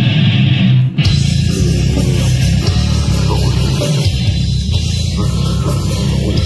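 Live metal band playing loud, with heavily distorted electric guitars, bass and drums. About a second in, after a short break, the full band crashes in with cymbals over the low riff.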